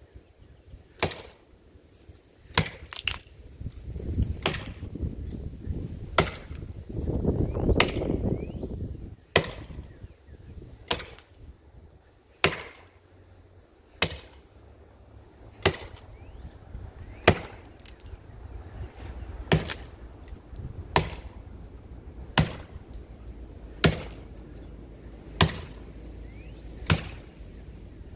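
Council Tool Woodcraft Pack Axe chopping into the trunk of a dead pine tree: sharp, dry blows landing steadily about once every second and a half. A brief low rushing noise swells and fades about seven seconds in.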